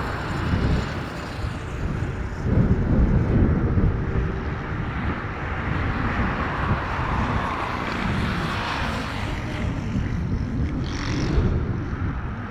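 Bombardier Challenger 600 business jet's Lycoming ALF 502 turbofan engines running, a deep, uneven rumble with a rushing noise over it, swelling a couple of seconds in, and a brief high whine near the end.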